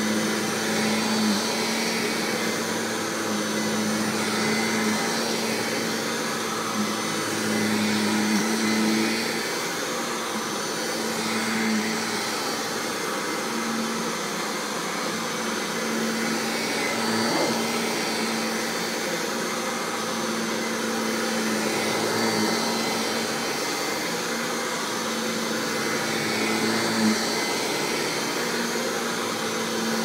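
Kirby G5 upright vacuum cleaner running steadily: a continuous motor hum and rush of air that swells and eases slightly. Its motor is one the owner finds weak and short of power.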